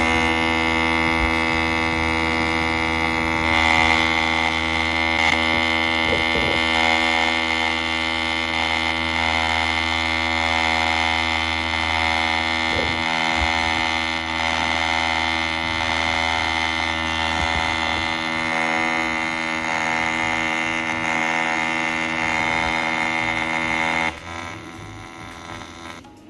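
TIG welding arc from a TIG-200ADP AC/DC inverter welder, set to square-wave AC in 4T mode with no pulse, burning on a metal plate. It is a steady hum with many overtones and cuts off about 24 seconds in when the arc stops.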